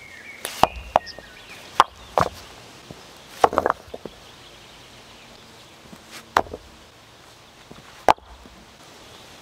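Stones being set down by hand and knocked against one another on dirt ground: a series of sharp clacks and knocks, with a quick cluster of them about three and a half seconds in and a single loud knock about eight seconds in.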